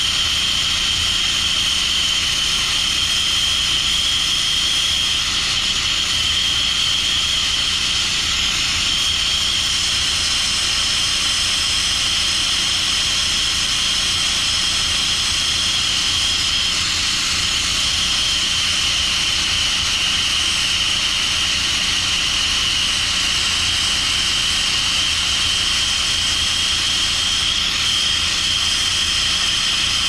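Handheld gas torch burning with a steady hiss, held on a leaking, water-wet pipe joint to heat it for soldering.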